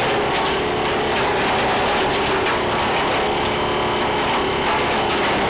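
Engine-driven wood chipper running steadily, with repeated sharp cracks as the dead branches fed into its hopper are chipped.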